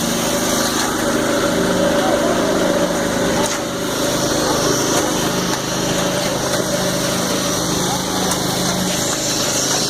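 Stationary concrete pump's engine running steadily, a continuous mechanical drone.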